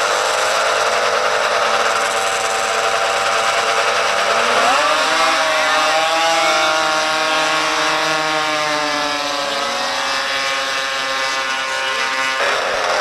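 Several two-stroke snowmobile engines running at high revs together, their pitch climbing and falling as they rev. The sound changes abruptly near the end.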